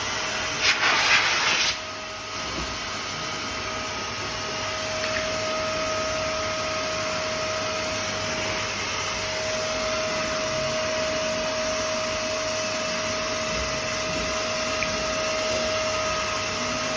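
15-litre vacuum cleaner running steadily, a high motor whine over a rush of air, with a louder burst of air for about a second near the start.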